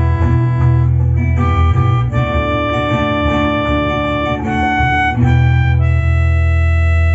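Melodica playing a slow melody in held notes over a backing track with bass and keyboards, settling near the end onto one long sustained chord.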